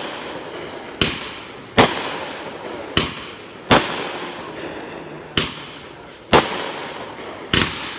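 Aerial firework shells bursting: seven sharp bangs, roughly a second apart, each trailing off in a fading rumble.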